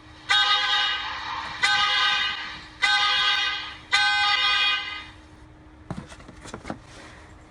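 A horn sounded four times in a row, each toot about a second long, starting loud and fading. A few soft clicks and knocks follow near the end.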